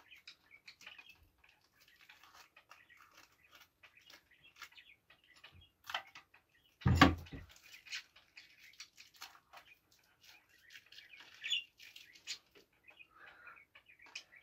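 Sticky tape being picked at and peeled off packaging by hand: faint crinkling, small ticks and scratches, with one louder knock about seven seconds in.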